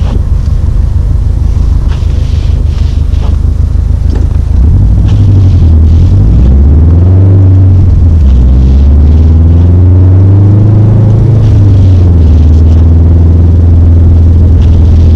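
2017 Subaru STI's turbocharged flat-four engine pulling under way with a heavy low rumble, loud throughout. About five seconds in it gets louder, and the engine note climbs and drops several times as the revs rise and fall.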